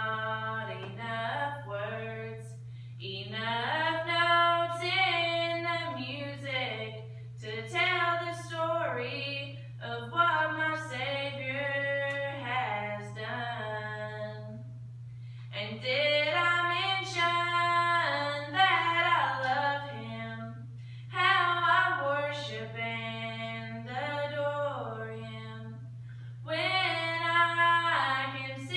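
A woman singing a gospel song solo and unaccompanied, in phrases of a few seconds with short breaths between.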